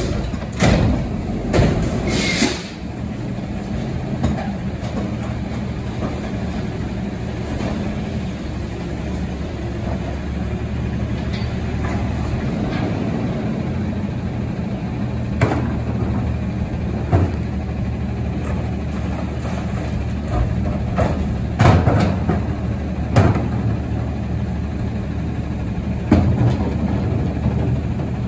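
Recycling truck's diesel engine running steadily, with a burst of hissing about two seconds in and a handful of separate clunks and bangs later on.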